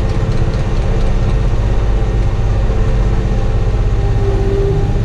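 Kioti compact tractor's diesel engine running steadily, heard from inside the closed cab, with a brief higher whine joining near the end.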